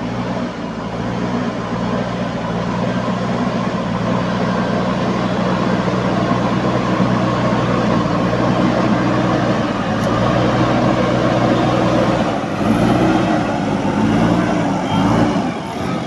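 JCB 3DX backhoe loader's diesel engine running steadily under load as the machine works with its front loader bucket. In the last few seconds the engine note wavers up and down.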